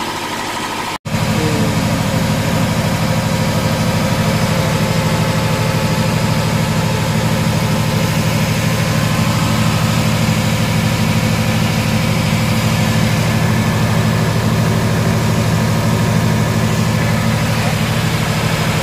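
An engine running steadily at idle, a low, even drone. It cuts out for an instant about a second in, then carries on a little louder.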